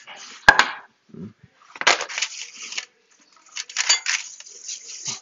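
Pie dough being rolled out on the counter: a sharp clack about half a second in, then two stretches of rolling and scraping from the rolling pin.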